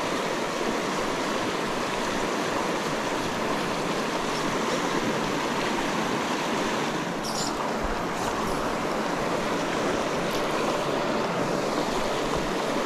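Steady rush of flowing river water, with a brief higher hiss about seven seconds in.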